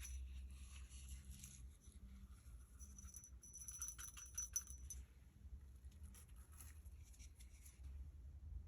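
Faint clicks and crackles of slime and small makeup pieces being handled and mixed, busiest about halfway through, over a low steady hum.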